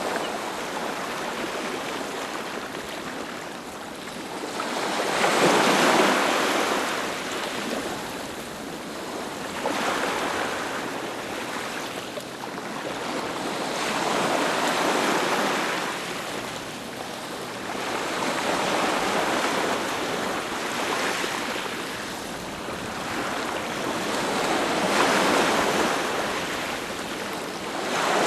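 Ocean waves breaking on a beach: a wash of surf that swells and fades every four to five seconds, the biggest wave about six seconds in.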